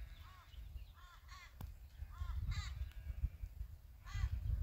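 Crows cawing: about six short, arching caws in a loose series, several in pairs, over a low background rumble.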